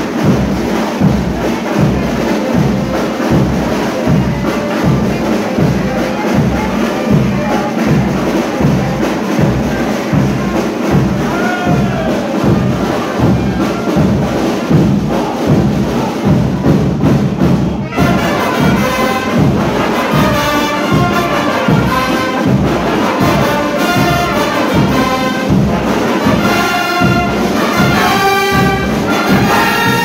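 Frevo brass band playing: trombones, trumpets and saxophones over a sousaphone, with drums keeping a steady beat. The brass comes in louder and brighter a little past halfway.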